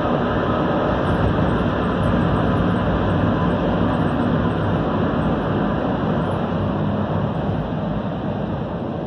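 Passenger train running along the line, heard from inside the carriage: a steady, loud rumble of wheels on rails and running noise. It eases slightly near the end.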